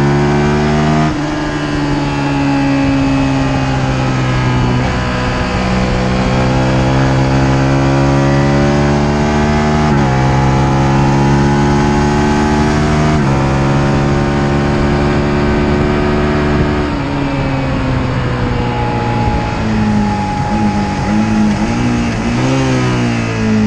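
Sport motorcycle engine on track, heard from on board: the revs climb steadily in each gear with sudden drops at three upshifts, then fall off and waver through a few throttle blips near the end, under steady wind rush.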